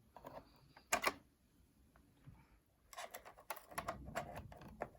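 Light, sharp clicks and taps of a metal plate and small parts being handled inside an opened iMac as the plate is lifted out. There is a louder click about a second in and a quick run of clicks around three seconds in.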